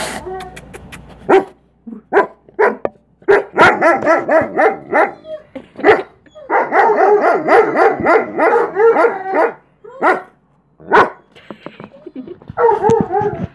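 German Shepherd howling excitedly at its returning owner in long, wavering calls, broken up by short sharp barks and yips.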